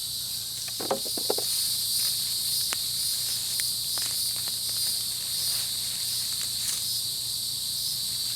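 Steady, shrill chorus of insects in two high-pitched bands, with a few faint rustles and clicks scattered through it.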